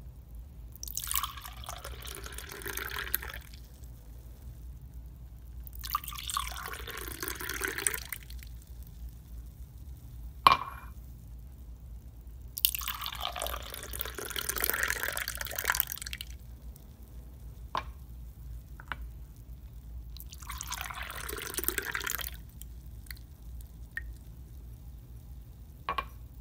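Wine poured into a glass four times, each pour splashing for two to three seconds with pauses between, a sharp click a little before halfway and a few single drip ticks.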